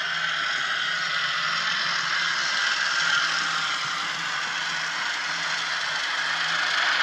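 Diesel engine sound of a Class 37 locomotive played by an N gauge model's DCC sound decoder through a tiny speaker, running steadily as the model moves, with the deep low end missing.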